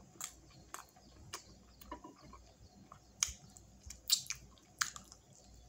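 Close-up eating sounds from sauced chicken wings: irregular wet mouth smacks and clicks, about seven, as meat is bitten and sucked off the bone.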